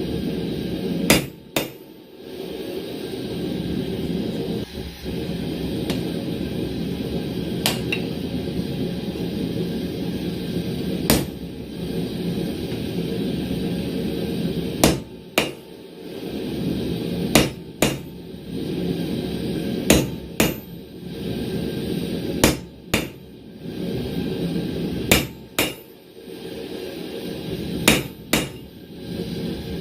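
Hammer striking a chisel held on the anvil, cutting a V groove into a hot steel tong blank: sharp ringing blows, mostly in quick pairs with two to three seconds between pairs, over a steady low rushing noise.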